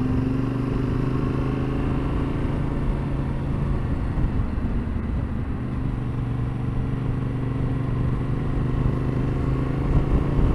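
Yamaha Ténéré 700's parallel-twin engine running steadily while the motorcycle cruises at about 30 mph, with wind rumbling on the microphone. The engine note rises near the end as the bike picks up speed.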